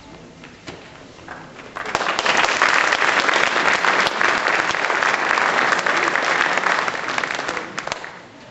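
Audience applauding in a hall, starting about two seconds in and dying away near the end.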